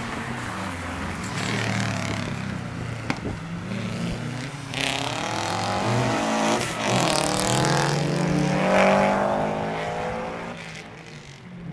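Subaru Impreza rally car's flat-four engine accelerating hard past, its pitch climbing through several gear changes in a row. It fades away near the end.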